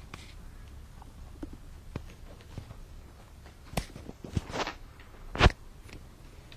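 Kittens scrabbling and pouncing on a cloth sheet: scattered soft taps, rustles and thumps, with a burst of rustling about four seconds in and the loudest thump about five seconds in.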